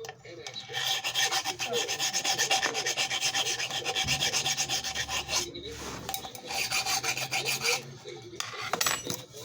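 Hand file rasping rust off a cast iron tea kettle in quick, short strokes. The strokes come in two long runs, with a brief pause in between and a short burst near the end.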